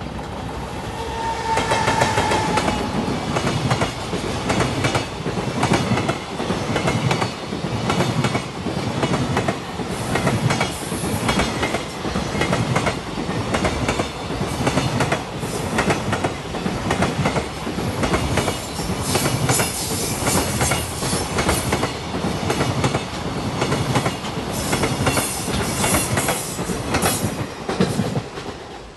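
Long freight train passing close by, hauled by a JR Freight EF210 'Momotaro' electric locomotive; the wagons' wheels run over the rail joints in a steady, rapid clickety-clack. The sound swells in the first couple of seconds as the train arrives, then stays loud while the wagons roll past.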